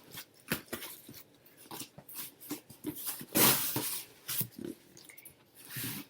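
Shipping package being torn and wrestled open by hand: a run of crinkling and rustling, with a longer tearing sound in the middle.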